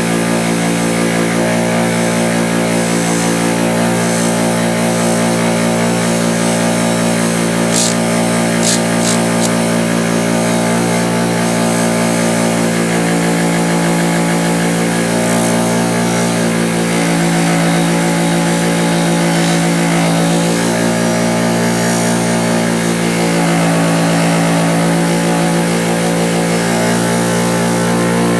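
Bench grinder running steadily with a 2000-grit polishing wheel, buffing a pair of steel needle nose pliers, with its even motor hum; a few sharp clicks about eight seconds in.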